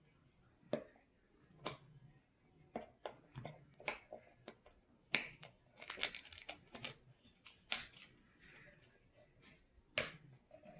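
Cardboard and paper packaging of an AirPods Pro box being handled and opened: irregular sharp clicks and taps, with a denser run of papery rustling a few seconds in.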